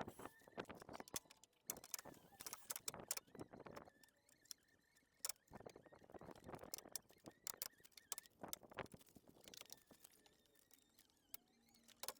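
Faint, irregular clicks, taps and scrapes of a replacement car side skirt panel being handled and fitted, some coming in quick little clusters.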